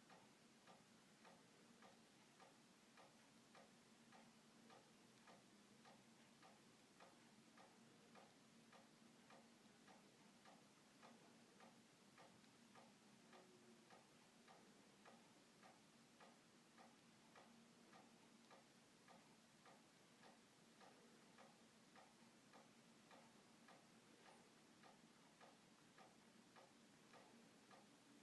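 Near silence with faint, regular ticking, about two ticks a second, over a faint steady hum.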